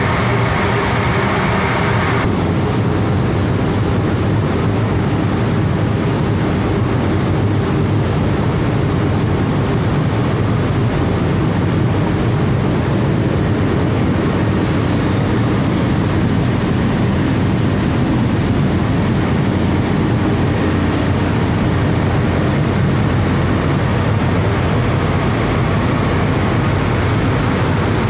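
Grain dryer plant machinery running: a steady, loud drone of blower fans and conveyors, with a higher hiss that drops away about two seconds in.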